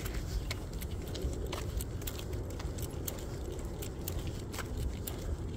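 Steady walking on pavement with a dog on a leash: light, irregular clicks and jingles from the leash clip and harness, over a low rumble from the handheld phone being carried.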